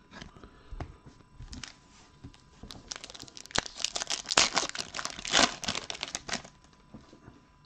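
Foil trading-card pack crinkling and tearing as it is ripped open and the cards are pulled out. A few faint crackles come first, and the crinkling is loudest from about three seconds in until shortly before the end.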